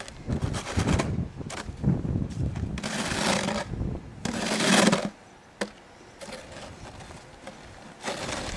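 Snow being shoveled off a roof: a string of scraping, whooshing bursts of shovel and snow, two longer ones about three and four and a half seconds in, with a single sharp knock a little later.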